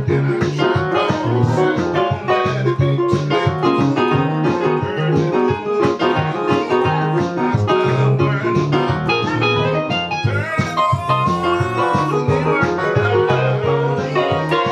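Instrumental music with keyboard or piano and a steady rhythmic bass line, played without a break.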